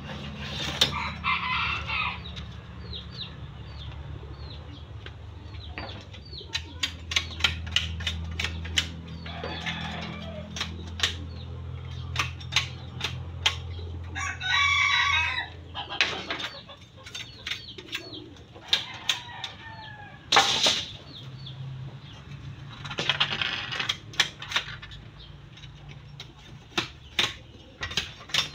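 Backyard chickens clucking, with a rooster crowing once about halfway through, among many sharp knocks and clicks.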